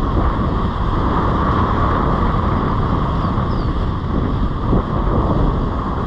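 Wind buffeting the microphone over the steady wash of surf breaking and running up the beach.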